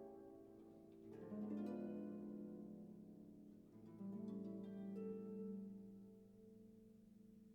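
Quiet background music of plucked, harp-like notes, each ringing on and fading.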